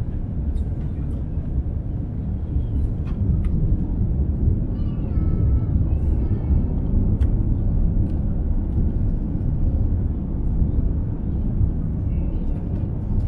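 Airbus A350-900 cabin noise in flight: a steady low rumble of engines and airflow, with a few faint clicks.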